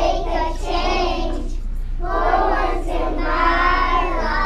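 A group of young children singing a song together, unaccompanied, in two sung phrases with a short break about two seconds in.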